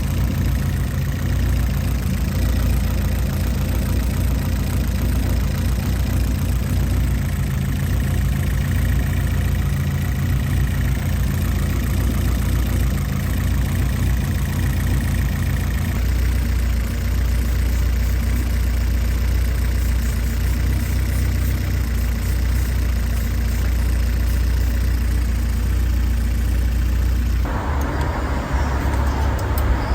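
Honda Civic B-series four-cylinder engine idling with a steady hum. Its note shifts slightly just over halfway through, and near the end the sound changes abruptly as a broader hiss comes in.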